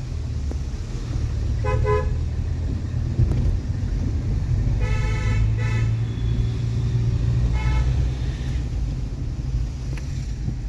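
Car horn honking four times: short toots with one longer blast about five seconds in, over the steady low rumble of a vehicle driving.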